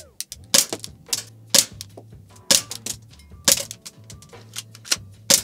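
Airsoft BB gun firing repeatedly at about one shot a second, each a sharp snap. Smaller clicks between the shots are BBs striking the Bluetooth speaker and ricocheting around the room.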